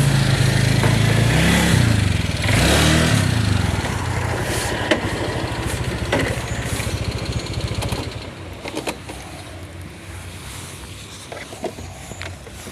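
Motorcycle engine running, its note rising and falling twice in the first few seconds, then dying away about eight seconds in.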